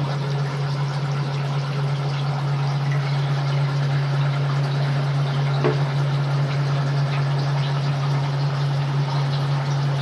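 Whirlpool fully automatic top-load washing machine in its spin cycle, its drum spinning to wring out the clothes with a steady low motor hum.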